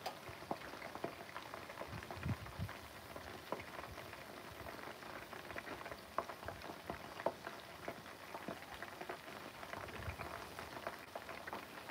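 Chicken wings deep-frying in hot oil in a pan: a steady sizzle with frequent small pops and crackles.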